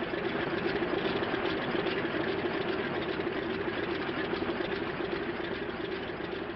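Propeller aeroplane engine running with a steady, fluttering drone.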